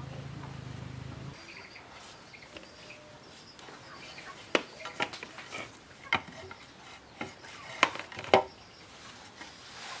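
A handful of sharp, separate knocks and clicks, like wood being handled or worked by hand. A low steady hum cuts off about a second in.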